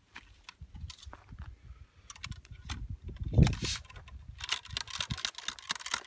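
A .54 caliber Lyman flintlock rifle being loaded at the muzzle: small clicks and scrapes of the ramrod and patched ball working into the barrel, with a louder thump about three and a half seconds in and a quick run of clicks near the end.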